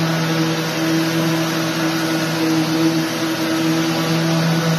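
Electric power sander running on a drywall wall patch, hooked by hose to a vacuum dust extractor: a steady hum with one constant low pitch over a broad rushing noise.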